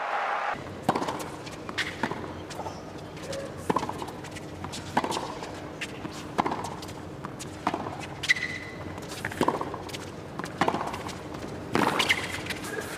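Tennis rally on a hard court: rackets strike the ball about every second and a quarter, with smaller ball bounces and shoe sounds in between. Applause cuts off about half a second in.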